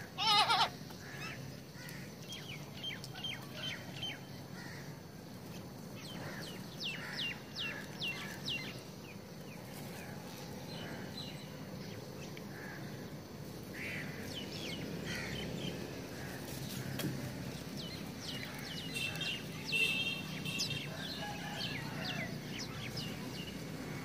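House crows cawing at intervals, with a loud harsh caw just after the start and another near the end, over a running chatter of short, high chirps from smaller birds.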